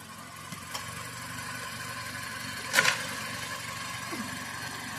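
Car engine idling steadily, warming up, with one short sharp scrape or clatter a little before three seconds in.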